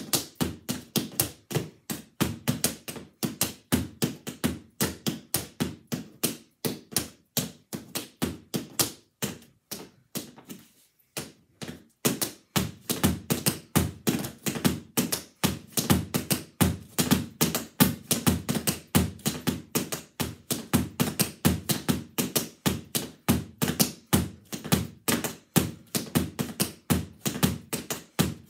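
Tap shoes' metal taps striking a hard mat laid over carpet in fast, continuous tap-dance rhythms of several sharp clicks a second, with a short pause a little before halfway.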